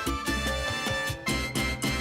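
Upbeat Latin-style background music with a steady percussive beat.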